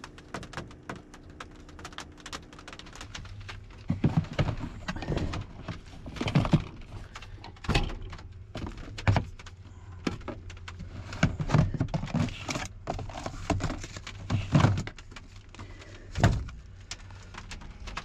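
Irregular knocks, thumps and rustling as camping gear is handled and moved about on the floor of a pickup's camper shell, with a faint steady low hum underneath.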